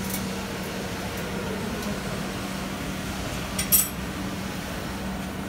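Steady factory-hall hum with a constant low drone, and a single short metallic clink a little past halfway through.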